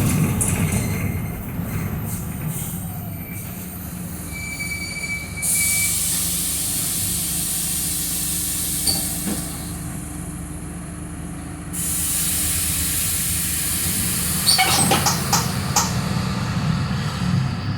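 Mercedes-Benz OF-1721 BlueTec 5 bus diesel engine running steadily, with a loud hiss lasting about six seconds in the middle and a burst of rattles and clicks near the end.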